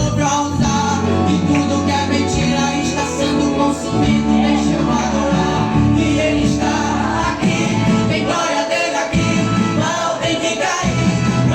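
Gospel worship song: singing over band accompaniment with sustained bass notes.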